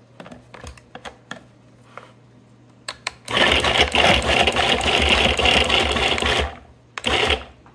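Cuisinart Little Pro mini food processor chopping fennel: the motor runs for about three seconds, then gives a short second pulse. Before the motor starts there are a few light clicks.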